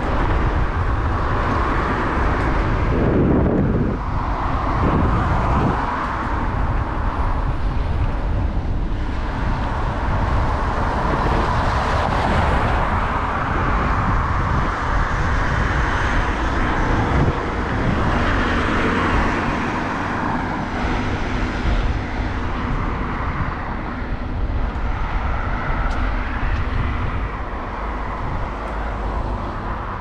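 Road traffic: cars passing on the street, each swelling and fading every several seconds, over a steady low rumble.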